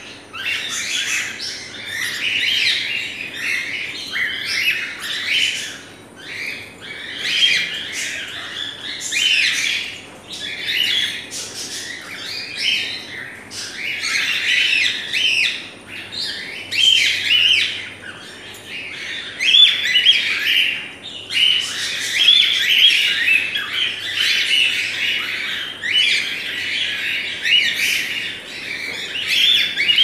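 A flock of caged cockatiels and other small parrots calling all at once: a dense, unbroken chatter of overlapping chirps and short calls.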